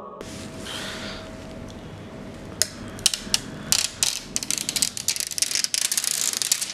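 Protective plastic film being peeled off a digital photo frame's glossy bezel and screen. A soft rustle gives way, about two and a half seconds in, to a run of crackling clicks that grows denser toward the end.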